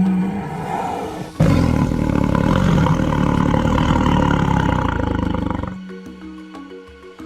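A tiger roars once: a loud, rough call that starts suddenly about a second and a half in and lasts about four seconds. Background music plays underneath and carries on after the roar.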